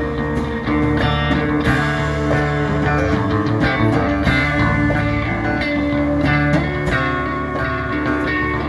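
Live band playing rock music, the electric guitar to the fore over a steady drum beat.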